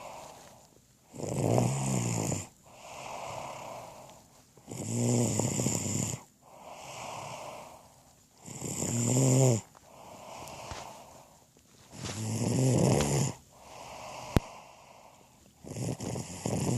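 Snoring: five loud, buzzy, rattling snores about every three and a half seconds, each followed by a softer, breathy breath. A single sharp click sounds about 14 seconds in.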